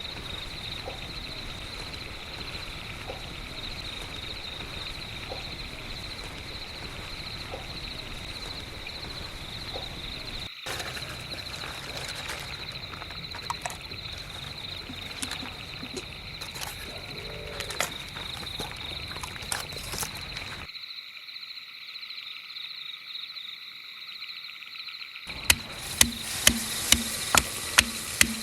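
A steady outdoor chorus of chirping insects and frogs, with scattered small clicks and knocks. Near the end, sharp, even knocks of a knife chopping on a board, about two a second.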